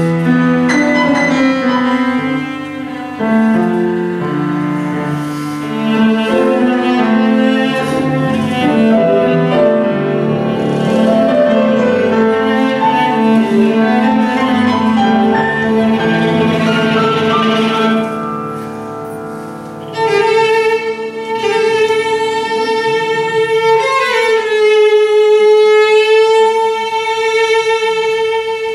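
Viola, cello and piano playing a tango together. About two-thirds of the way in the lower parts drop out and a single bowed string, the viola, holds a long note alone, slipping slightly lower to a final sustained note.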